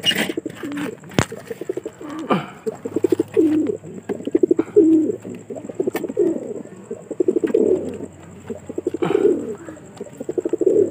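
Domestic pigeons cooing in a wire-mesh loft cage: a string of low, throaty, rapidly pulsing coos, one after another about every second.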